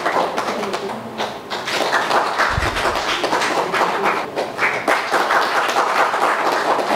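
Small group applauding: a dense, uneven patter of hand claps, with one dull thud about two and a half seconds in.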